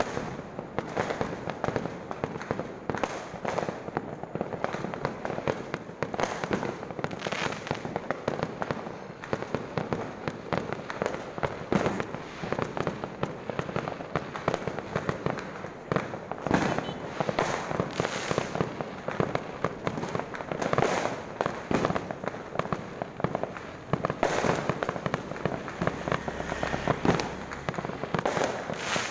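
Many fireworks and firecrackers going off at once: a dense, continuous, irregular crackle of bangs and pops, with louder single bangs now and then.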